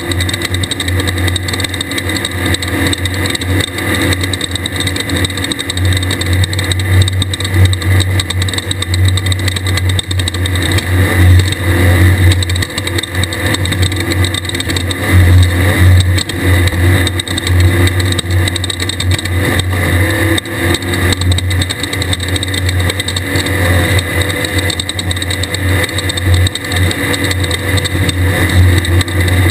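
Air-cooled Volkswagen 1600 engine of a desert race buggy running hard at speed, its note growing louder and easing off again and again with the throttle, over a constant rush of noise.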